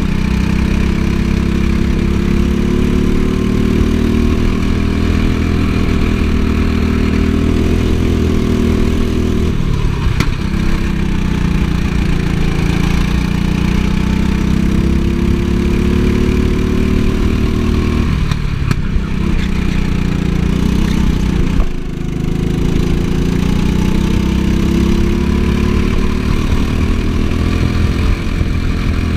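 Go-kart engine heard from the driver's seat, its pitch climbing steadily for several seconds as the kart accelerates, then dropping sharply as the throttle comes off for a corner, three times over.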